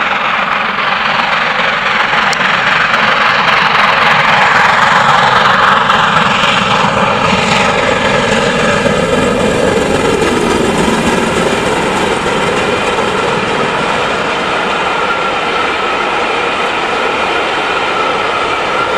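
LMS Jubilee class three-cylinder 4-6-0 steam locomotive 45690 Leander approaches and passes at speed, working a train. Its sound builds, then drops in pitch as it goes by about eight seconds in. The steady rolling noise of the coaches on the rails follows.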